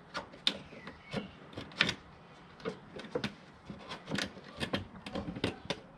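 Irregular light clicks and knocks as an MTB Hopper Intro portable bike jump ramp's frame and legs are handled and adjusted, about a dozen in a few seconds.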